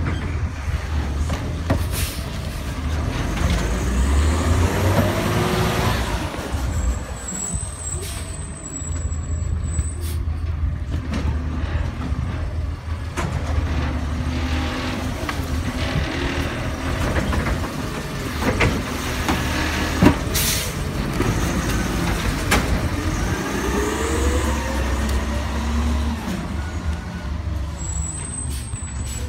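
Autocar garbage truck's engine running while its New Way Sidewinder automated side arm picks up and dumps trash carts. The engine revs with rising whines twice, about 3 seconds in and again about 23 seconds in, and there is a sharp knock about 20 seconds in.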